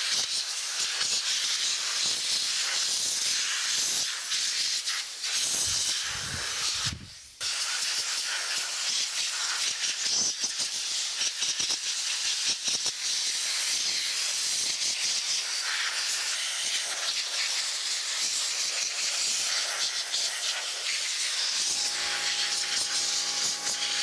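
Compressed air hissing steadily from a blow-gun nozzle, blasting loose dirt out of a 1938 Remington Rand manual typewriter's mechanism, with a short break about seven seconds in. A steady hum comes in near the end.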